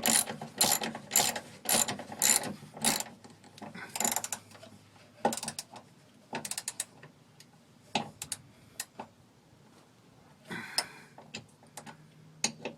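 Hand socket ratchet clicking as a small side-step bracket bolt is run down, about three even clicks a second for the first three seconds, then slower, scattered clicks. A brief noisy scrape about ten and a half seconds in.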